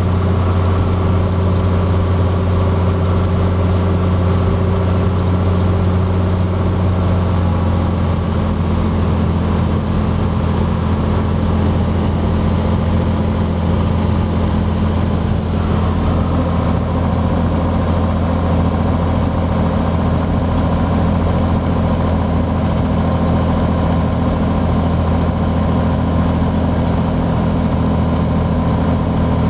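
Cessna 182's six-cylinder piston engine and propeller droning steadily as heard inside the cabin during the landing approach, its tone shifting slightly about seven seconds in.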